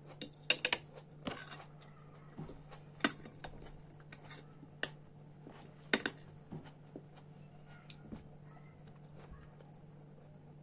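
Kitchen handling noises: irregular sharp clicks and taps of utensils and containers, the loudest about half a second, three seconds and six seconds in, with a short scrape near the start. Under them runs a steady low hum.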